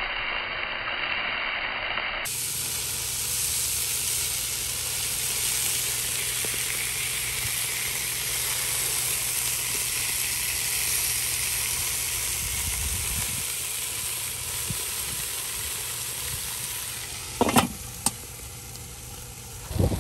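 Beef burger patties sizzling steadily on the grate of a small Weber charcoal grill, with two sharp clicks near the end.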